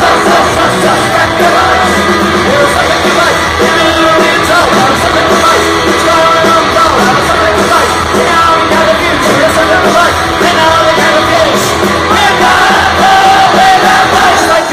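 Loud live punk rock band playing electric guitars, bass, drums and vocals, with the crowd yelling along.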